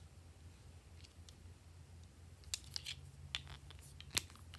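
Nail polish bottle being twisted open, its cap clicking and scraping against the bottle: a run of small sharp clicks about halfway in, the loudest one near the end.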